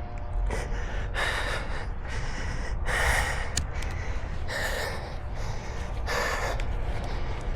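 A runner breathing hard and gasping, about six deep, loud breaths, out of breath from a hard 600 m interval run at about 3:29 per km.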